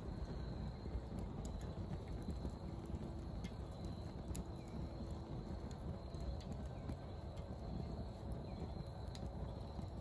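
Broken bamboo burning furiously in a small perforated metal stove: a steady low, fluttering rush of flame, like a strong drawing of air, with scattered sharp crackles. The fierce burning is put down to the oils in the bamboo.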